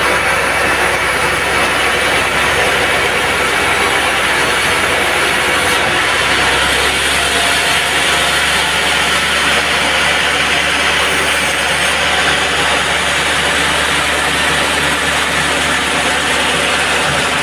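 Band sawmill machinery running, a loud steady mechanical noise; the low hum drops away about seven seconds in.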